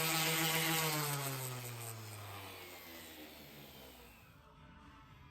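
Electric power tool's motor whining at speed, then spinning down after being switched off, its pitch falling and fading over about three seconds.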